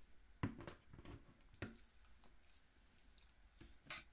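Soft wet squishing and a few light clicks and taps as a steamed crab's shell and its soft innards are handled with a fork, a handful of sharp ticks about half a second in, around a second and a half, and again near the end.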